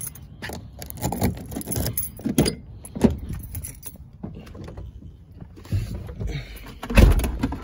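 Keys jangling and clicks at the driver's door of a Ford Expedition as it is opened and someone climbs in, then one heavy thump near the end as the door is shut.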